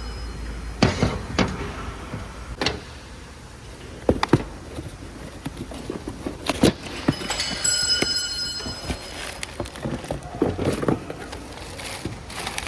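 A string of irregular knocks and clanks, with a short ringing tone about eight seconds in, typical of tools and parts being handled during work on an engine.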